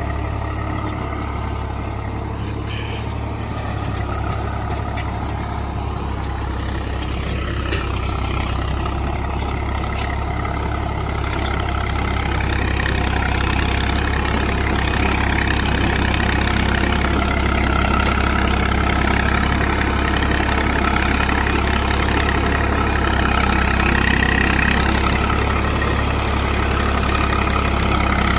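Swaraj 855 tractor's three-cylinder diesel engine running steadily under heavy load, pulling a super seeder through wet soil in fourth low gear at about 1300–1400 rpm. It gets gradually louder from about halfway through.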